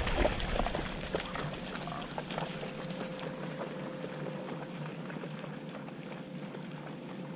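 Retriever splashing through shallow marsh water, faint and even, with a few light splashes or ticks in the first couple of seconds and a faint steady hum underneath.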